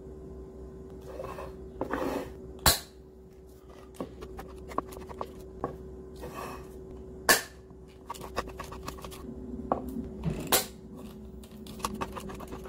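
Metal food cans being handled and set down on a wooden cutting board: three sharp knocks with lighter scrapes and taps between them, over a steady hum. Near the end come small metal clicks as a handheld can opener is clamped onto a can.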